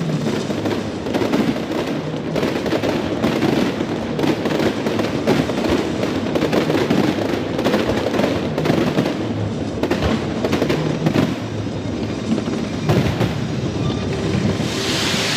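Fireworks display going off in rapid succession: dense, continuous bangs and crackles, with music playing underneath.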